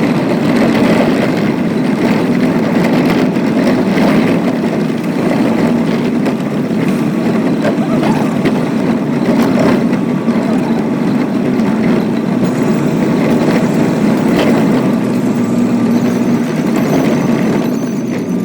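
A vehicle engine running steadily, with a constant low hum under a broad rushing noise.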